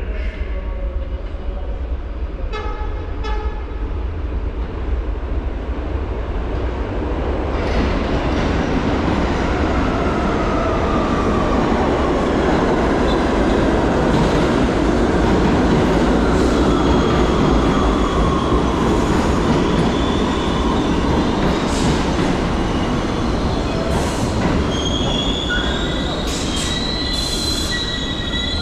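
A New York City subway 1 train of R62A cars pulling into an underground station: the rumble of wheels on the rails swells as it arrives, with a falling wheel squeal through the middle. High squeals and a few sharp clicks come near the end as it slows.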